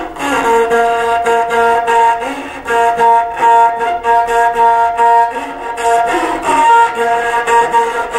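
Qom n'vike, a one-string bowed fiddle with a tin-can body and a horsehair bow, played in long held notes with brief sliding changes of pitch between them.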